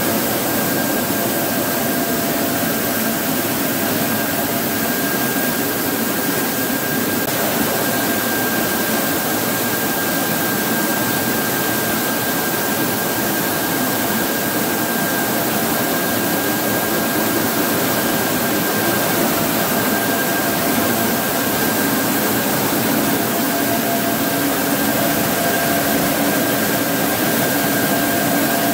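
Corn mill machinery running steadily: a loud, even mechanical noise from the mills and air-conveying fans and cyclones, with a faint steady whine over it.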